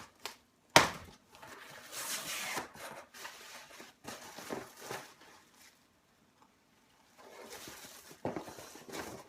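Packaging rustling and crinkling as a cardboard box is unpacked by hand, with a sharp knock about a second in and a short pause midway.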